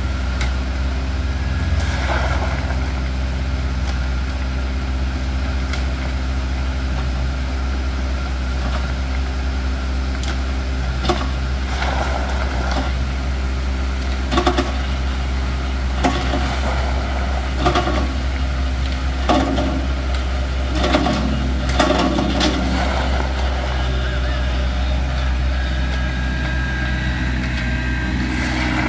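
Compact tractor's engine running steadily, with scattered knocks, scrapes and clatters from soil being dumped and raked over a wire soil screen, most of them in the middle stretch.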